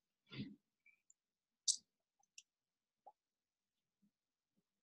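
Near silence broken by a few light computer mouse clicks, the clearest about a second and a half in and two fainter ones after it.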